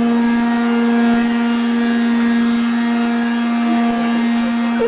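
Vacuum cleaner running steadily: a constant motor drone with a strong low hum and overtones, unchanging in pitch.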